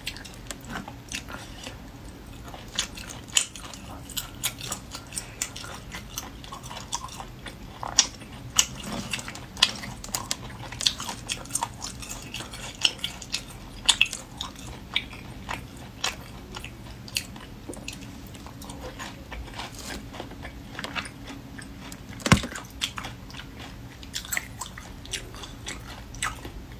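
Close-miked eating of spicy braised river snails: wet chewing and smacking, with frequent irregular sharp clicks as the snail meat is picked out and bitten.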